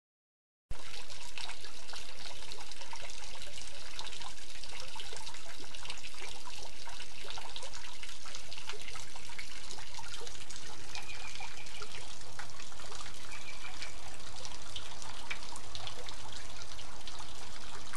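Water trickling and splashing from the rim of a stone garden fountain's basin into the pool below: a steady patter of falling drops that starts abruptly just under a second in.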